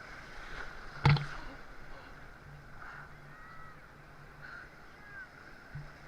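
Ocean water sloshing around a person wading, heard faintly through an action camera's housing, with one sharp knock about a second in and a smaller one near the end.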